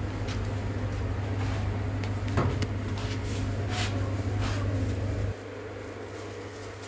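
Spray booth ventilation fans humming steadily, dropping in level a little over five seconds in, with a few short knocks along the way.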